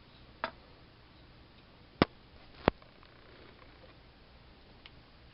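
A few sharp clicks from handling the motor mount and propeller on the thrust test stand: a light one about half a second in, two louder ones about two seconds and two and a half seconds later, and a faint one near the end.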